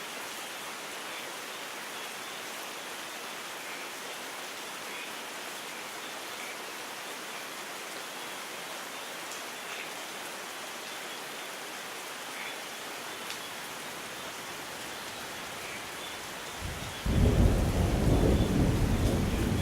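Steady rain with a few faint drops. Near the end a loud rumble of thunder breaks in suddenly and keeps rolling.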